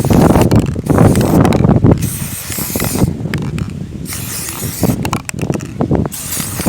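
Aerosol spray paint being sprayed in several short hissing bursts, with a loud rough rustling noise in the first two seconds.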